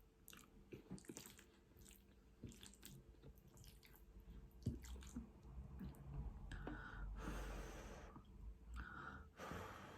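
Faint, close-miked chewing of food, with soft wet mouth clicks scattered throughout and a couple of longer soft hissing sounds near the end.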